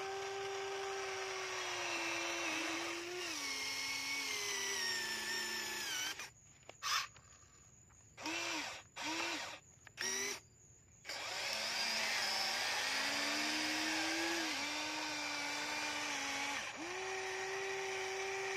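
Electric motors of a Huina remote-control model excavator whining as the arm and bucket work, the pitch sagging lower at times. In the middle the whine stops and starts in several short bursts, then runs on steadily again.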